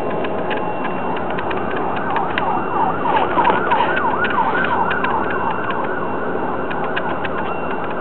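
A distant emergency-vehicle siren yelping in quick rising-and-falling sweeps. It fades in about two seconds in, is strongest around the middle and fades out, over a steady rushing outdoor noise with scattered clicks.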